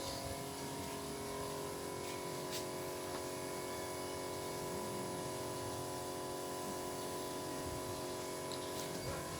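A steady machine hum made of several even tones, with no change in level.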